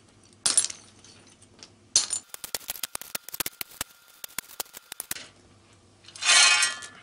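Pieces of broken ceramic tile dropped into concrete formwork, clinking against one another: a few single knocks, then a run of quick clinks for about three seconds, and a louder clatter as a handful is tipped in near the end. This is the inside of a concrete step being filled with rubble.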